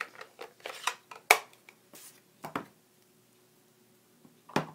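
Light clicks and taps of plastic stamping supplies being handled: a red ink pad case and a clear acrylic stamp block. The loudest is a sharp click about a second in; after a quiet spell, a few more taps come near the end as the stamp is pressed onto the ink pad.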